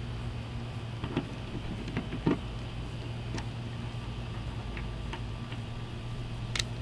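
Scattered light clicks and knocks as a plastic fin is seated in a stand-up paddle board's center fin box and a screwdriver works in the box, the sharpest knock about two seconds in. A steady low hum runs underneath.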